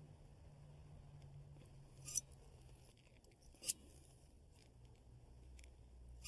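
Caulking gun clicking twice, about two seconds in and again a second and a half later, as a bead of caulk is run around the flange of an exterior vent hood.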